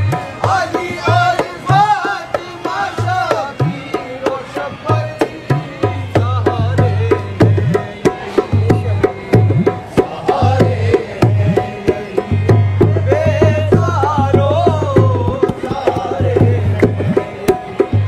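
Live qawwali: a male voice sings wavering devotional lines over a harmonium, while a hand drum keeps a steady, quick beat throughout.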